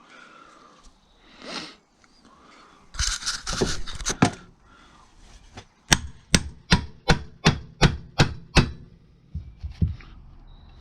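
Hammer blows: a quick flurry of knocks about three seconds in, then a run of about eight evenly spaced sharp strikes, a little under three a second, and a couple of softer taps near the end.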